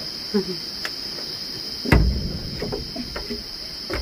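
Continuous high-pitched insect drone, with a few scattered light knocks and one heavy thud about two seconds in.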